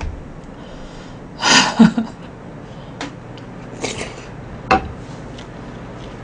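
A person eating shaved ice (bingsu) with a wooden spoon: two short, noisy intakes of breath, about a second and a half and four seconds in, and a few light clicks of the spoon against the plastic cup.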